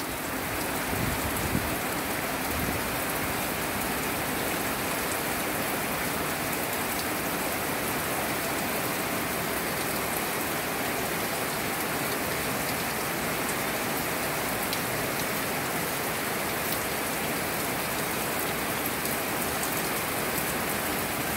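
Steady rain falling with no wind onto wet gravel ground and puddles, an even hiss that holds at the same level throughout.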